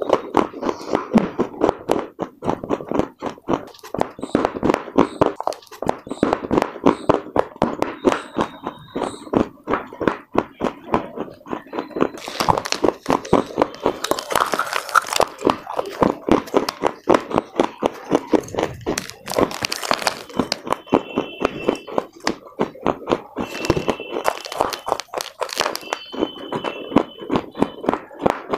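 Close-up crunching and chewing of dry clay chunks: a steady run of crisp crunches several times a second, with a few louder crackling bursts around the middle.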